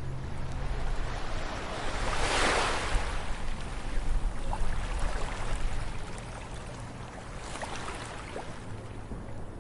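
Ocean surf washing onto a sandy beach: one wave swells up loudly about two seconds in and a smaller one comes near the end, over a steady low rumble.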